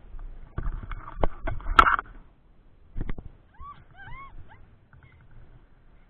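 Wind buffeting the microphone of a pole-held camera during tandem paraglider flight, with knocks and rattles in the first two seconds, the loudest about two seconds in. A little past the middle come four short high-pitched calls that each rise and fall.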